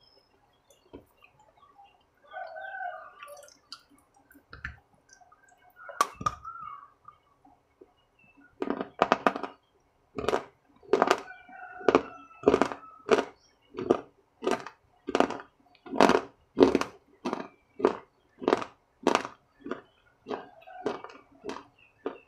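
Close-miked chewing of food with the mouth closed: a steady run of crunchy chews, about two a second, starting about eight seconds in.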